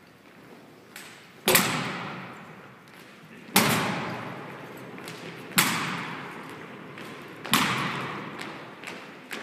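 Rifle drill team striking the floor in unison: four loud, sharp impacts about two seconds apart, each echoing in a large hall.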